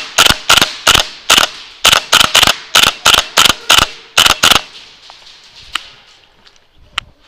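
Airsoft gun firing close by: about a dozen sharp single shots at roughly three a second, stopping about four and a half seconds in. Later come a couple of faint single cracks.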